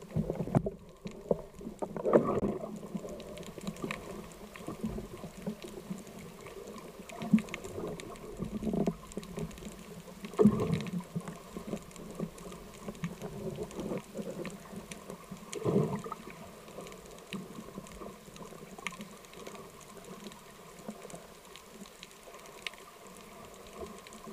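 Underwater sound picked up by a camera in a waterproof housing on a speargun: a steady muffled water hiss with faint crackling, broken by several dull knocks, the loudest about 2, 10 and 16 seconds in.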